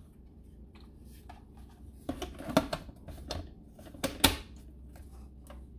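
A handful of light knocks and clicks of a plastic blender jar and lid being handled, the loudest a little past halfway. The blender motor does not run: the jar is not seated properly, so the safety lock keeps it from starting.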